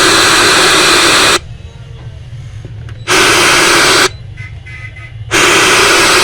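Loud electronic static hiss from a speaker, cutting in and out abruptly: three bursts with much quieter gaps between.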